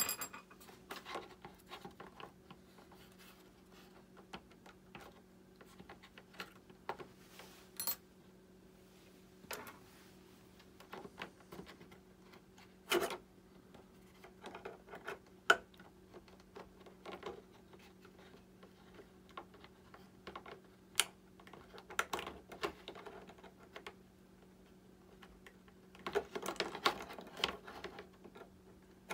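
Scattered light clicks and taps of small parts being handled while fitting retractable landing gear and clevises to an RC jet model, busier near the end, over a steady low hum.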